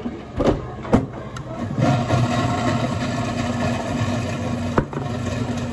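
A few knocks, then an electric blender's motor starts about two seconds in and runs steadily with a humming whine.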